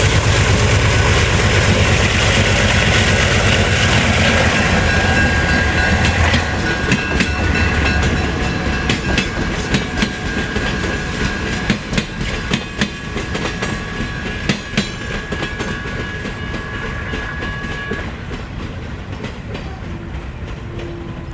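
Diesel-hauled passenger train passing: the locomotive's engine throbs loudly for the first several seconds, then the coaches roll by with sharp wheel clicks over the rail joints and a thin high wheel squeal, the sound slowly fading.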